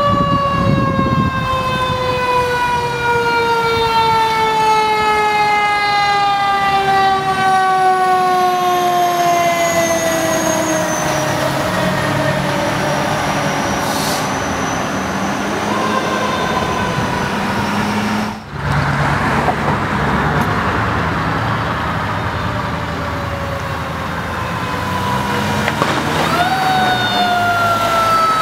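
Fire engine's mechanical siren wailing: a long, slow fall in pitch as it coasts down, then spun up quickly near the end and starting to fall again. A heavy truck engine runs low underneath.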